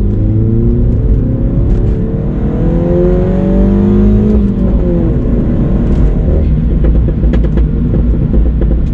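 Car engine heard from inside the cabin, accelerating with a rising pitch for about four seconds, then dropping as the manual gearbox is shifted up, after which it runs on steadily with road and tyre noise.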